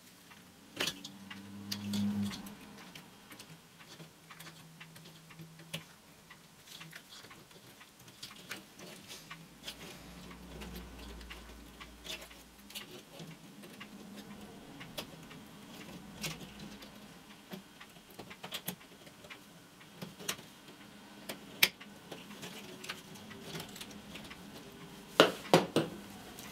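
Chicken wire being worked with pliers and gloved hands, sped up: a quick, irregular run of small metallic clicks and ticks as the wire ends are bent and tucked along the seam, with a louder clatter near the end.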